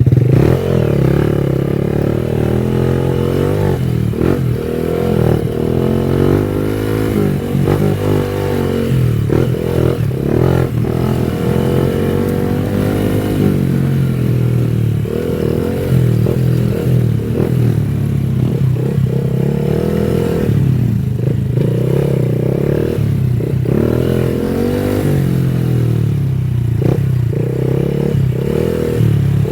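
Honda Wave 110i's small single-cylinder four-stroke engine running under way, its pitch rising and falling repeatedly as the throttle is opened and eased. Short knocks and rattles come through now and then.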